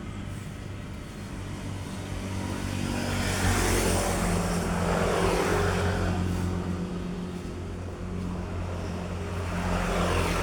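Road traffic: a steady engine hum, with a vehicle passing by about four seconds in and another near the end.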